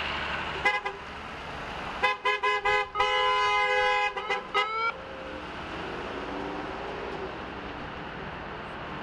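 Car horn honking from a passing vehicle: a short beep, then a run of quick toots, a held blast of about a second and two more short toots, over the hiss of passing traffic.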